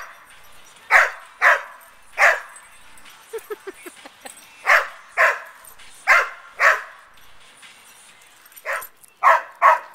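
Dog barking in rough play: about ten short, sharp barks, mostly in quick pairs, with a brief low rattling sound about three and a half seconds in.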